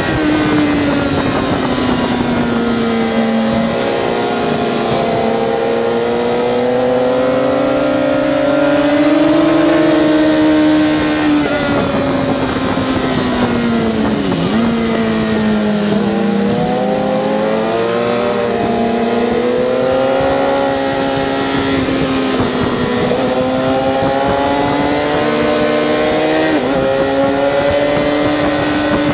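Sport motorcycle's engine heard from on board at track speed, its pitch climbing and falling several times as the rider accelerates and backs off through corners. About fourteen seconds in the pitch drops steeply, then climbs again.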